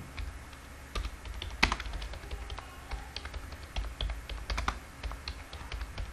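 Typing on a computer keyboard: irregular key clicks that start about a second in, over a low steady hum.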